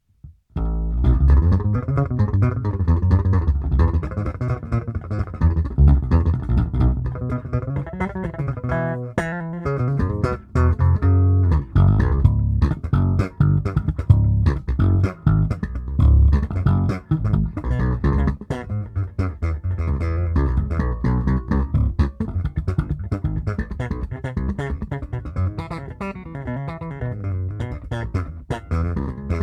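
Electric bass guitar playing a continuous line, heard through an 1176-style compressor (the Limit 76 on a Zoom B6) placed after the Magellan, starting about half a second in.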